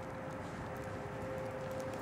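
Distant outdoor tornado warning sirens sounding together as one steady held tone with a fainter, slightly lower tone beneath it, over background noise and scattered faint clicks.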